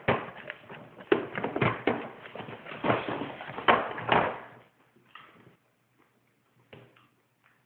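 Plastic bowl clattering and rattling as it is spun and rolled against a plastic high-chair tray: rapid, irregular knocks that stop about four and a half seconds in, leaving only a few faint taps.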